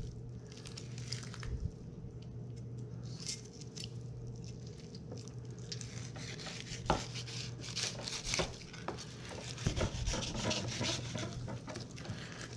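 Knife slicing and scraping between a freshwater drum's fillet and its scaly skin on a wooden cutting board, with scattered small clicks and wet handling sounds that get busier in the second half. A steady low hum runs underneath.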